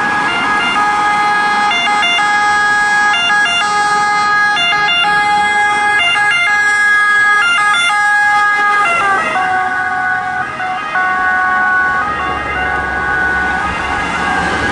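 Two-tone siren of a Fiat Ducato X290 ambulance, switching back and forth between a high and a low note as the ambulance approaches. About nine seconds in, as it passes, both notes drop in pitch and it carries on sounding at the lower pitch as it drives away, with some engine and tyre noise underneath.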